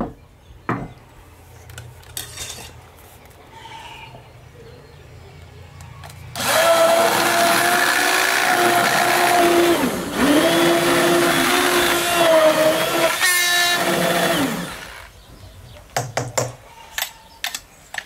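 Electric hand blender running in a stainless steel pot, puréeing boiled nettles in their cooking water. The motor starts about six seconds in, drops out briefly about ten seconds in, and stops near fifteen seconds.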